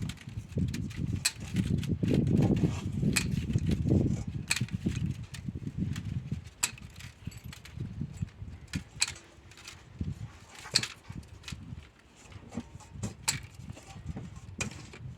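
Hand tools working on a heavy armoured power cable, cutting through its steel armour: irregular sharp metallic clicks and knocks over low rumbling handling noise.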